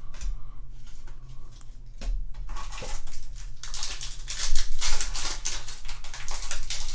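A Yu-Gi-Oh booster pack's foil wrapper being torn open and crinkled, a dense crackling from about three and a half seconds in. Before that, lighter rustling and clicks of cards being handled.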